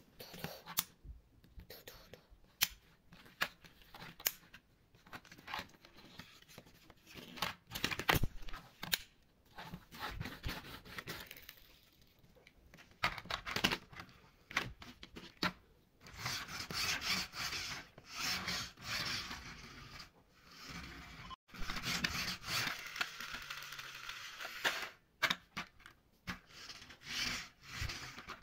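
Plastic toy trucks being handled and pushed along a hard tabletop. Scattered clicks and knocks of plastic parts alternate with longer stretches of wheels rolling and scraping on the surface.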